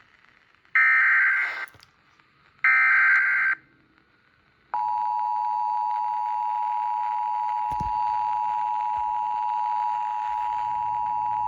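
Emergency Alert System header: two short, harsh bursts of SAME data tones about two seconds apart, then the steady two-tone EAS attention signal starts about halfway through and holds.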